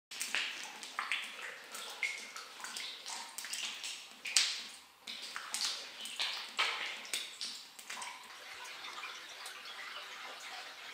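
Water splashing and dripping in a limestone cave: irregular splashes and drops for about the first eight seconds, then a steadier trickle of running water.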